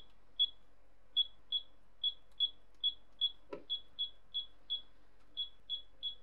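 Hobby LiPo balance charger's buzzer giving a short high beep with each button press as its menus are stepped through, about fifteen beeps at two or three a second. One soft click just past halfway.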